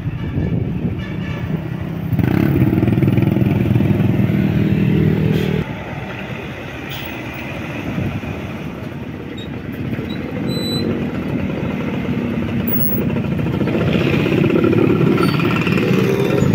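Hyundai Universe coach's diesel engine running as the bus drives past, loudest for a few seconds near the start, then cutting down suddenly and rising again near the end, with road traffic around it.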